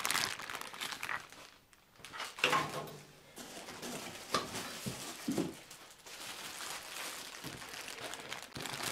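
Clear plastic packaging bags crinkling and rustling in irregular bursts as wrapped parts are handled, with a brief quiet gap about two seconds in.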